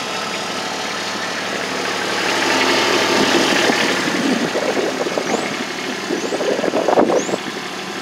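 Kubota RTV-X1100C's 0.9-litre three-cylinder diesel idling steadily. Irregular bursts of louder noise ride over it partway through.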